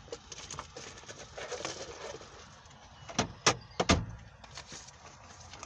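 A few sharp knocks and clicks, the loudest a cluster about three to four seconds in, like objects being handled in or against a vehicle.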